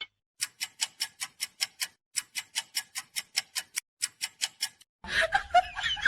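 Clock-like ticking, about five sharp, evenly spaced ticks a second, stopping just before five seconds in. Then a low hum with a wavering high-pitched warble starts.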